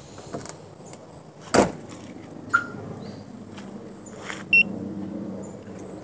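A sharp clunk from the car's rear hatch latch, then two short beeps from the Tomahawk TW9010 car alarm, the second higher and louder. A steady low hum sets in right after the second beep.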